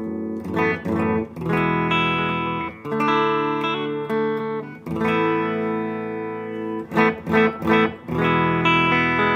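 Electric guitar played through a Crucial Audio Tone-Nugget vacuum-tube booster pedal into a small Yamaha solid-state practice amp: several ringing chords, then a few quick, short strums about seven seconds in. The pedal is engaged and passing signal, working after its repair.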